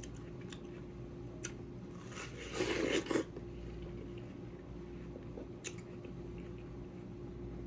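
Biting into and chewing cold, juicy watermelon, with one louder crunching bite about two and a half seconds in and a few small wet mouth clicks around it.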